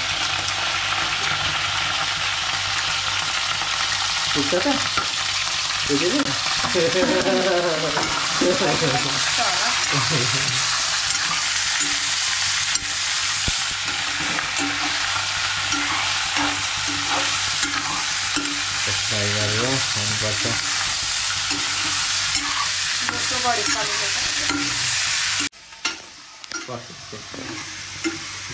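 Steady crackling sizzle of food frying in a pan, with faint voices in the background. About three seconds before the end the sizzle cuts off suddenly, leaving quieter sounds.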